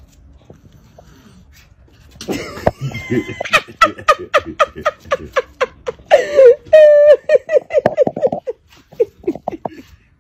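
A person laughing hard in quick, repeated bursts, starting about two seconds in, with a high-pitched squeal of laughter in the middle.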